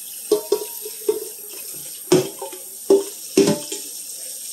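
Tap water running into a stainless steel pot in a kitchen sink, with about six sharp clanks of the metal pot, each ringing briefly, as it is handled.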